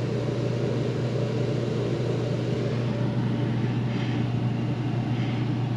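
Mr. Heater Big Maxx gas garage heater running with its newly replaced blower fan: a steady hum and rush of air with a little vibration through the mounting struts. It sounds back to normal, the earlier terrible motor noise gone.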